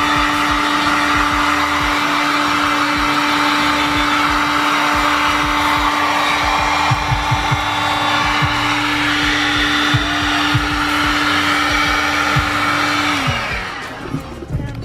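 Electric heat gun running steadily, a hissing blow of air over a constant motor hum. About 13 seconds in it is switched off and the motor winds down, its hum falling in pitch as the hiss dies away.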